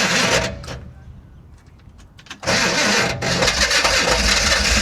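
Car starter cranking the engine, cutting out about half a second in; after a pause of about two seconds it cranks again, and near the end the engine catches and runs. The starter is dragging, which the owner suspects comes from a starter that is not shimmed properly.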